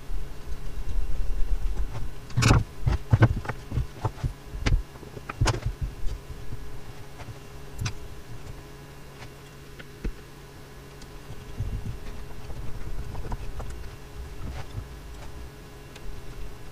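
Screws being driven into a pine-batten frame joint with a screwdriver. A run of sharp clicks and knocks comes a couple of seconds in as the wood and fixings are handled, with scattered lighter clicks later.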